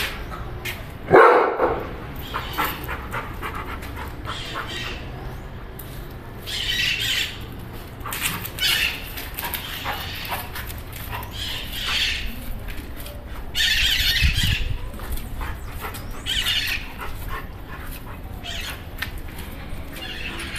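Dogs at play: one loud bark about a second in, then a series of short high-pitched squeals every second or two.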